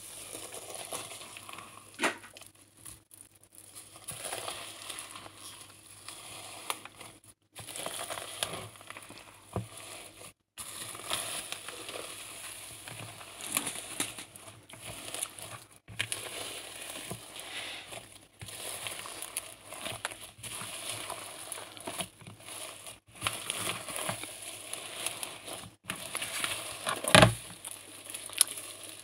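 Slime being squeezed and worked by hand, making irregular crackling and popping clicks, with one louder thump near the end.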